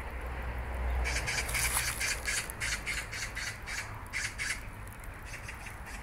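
A bird's harsh call: a rapid run of rasping notes, about five a second, starting about a second in and stopping about four and a half seconds in.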